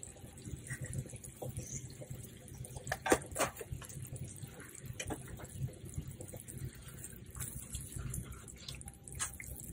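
Butter sauce simmering in a pan, bubbling faintly, with a few scattered light clicks.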